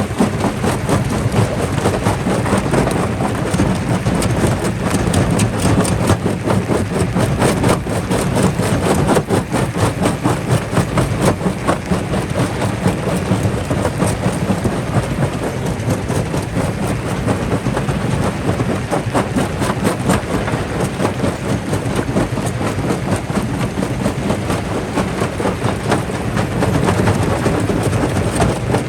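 Jaw rock crusher running under load, rocks cracking and knocking in the jaws in a dense, unbroken clatter over a steady heavy rumble.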